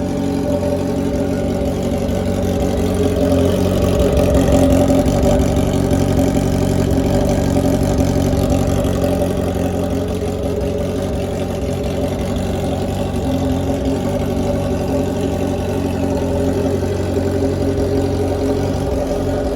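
Honda CB650F's 650cc four-stroke inline-four running through a straight-piped full exhaust system with no silencer, a loud, steady, raw exhaust note. It swells a little in level a few seconds in, then settles back.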